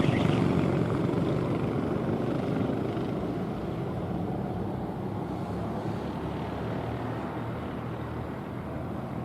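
Competition car running a gymkhana course, its engine working hard. The sound is loudest at the start and slowly fades as the car moves farther off.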